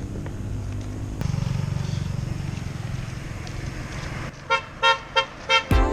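Motorbike engine running, getting louder about a second in as it is revved, then a quick series of short horn beeps near the end.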